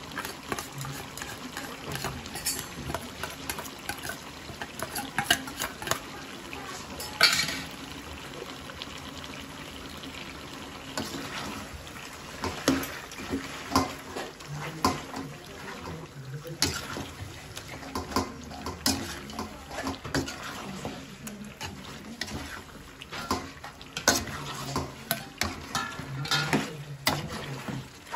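A slotted metal spatula scraping and clinking against a metal kadai as chicken pieces and a thick ground masala paste are stirred and turned, with irregular knocks and the wet mixture squelching.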